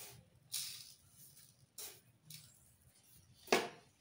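Granulated sugar spooned into a mixer-grinder jar of chopped ash gourd: about five short hissing pours of grains, the last and loudest near the end.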